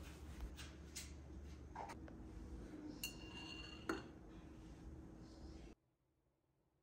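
Faint clinks and taps of a metal straw against a tall drinking glass, with one ringing clink about three seconds in and a sharper knock about a second later. The sound cuts out shortly before the end.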